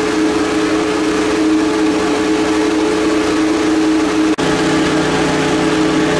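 Fire engines running steadily at the scene, a constant droning hum with a short break about four seconds in, after which a similar engine drone carries on.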